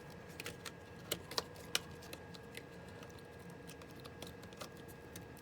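Light clicks and taps of small plastic laptop parts being handled and fitted by hand, with a few sharper clicks between one and two seconds in, over a faint steady hum.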